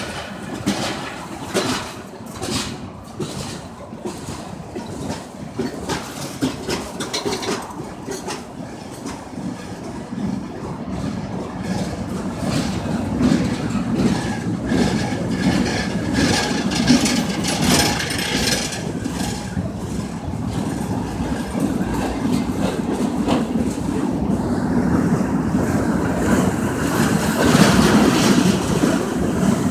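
CSX freight train's boxcars and gondolas rolling past, steel wheels clicking and knocking over the rail joints under a rumble. The train grows louder toward the end.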